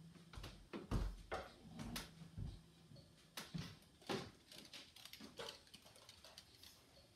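Irregular knocks, clicks and light clatter of objects being handled and set down, the loudest about a second in and about four seconds in, with a faint low hum coming and going.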